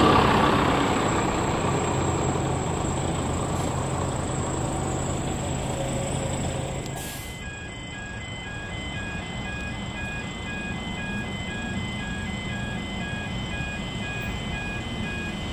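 Running noise of a passing vehicle, with a steady low hum, fading away and cutting out about seven seconds in. Then a repeating electronic warning tone, quick evenly spaced beeps, takes over.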